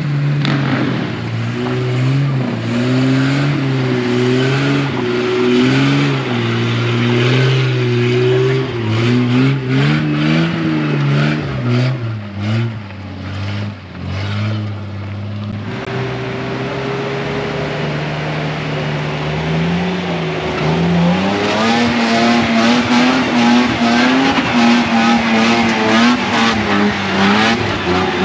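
Nissan Patrol 4WD engines revving up and down as the vehicles drive through deep mud ruts. The revs hold steadier for a few seconds around the middle, then climb higher and surge unevenly near the end.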